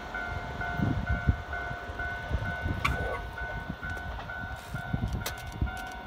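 Japanese level-crossing warning bell ringing steadily, about two dings a second, which means a train is approaching or passing. Under it a Keikyu electric train's wheels rumble and knock on the rails.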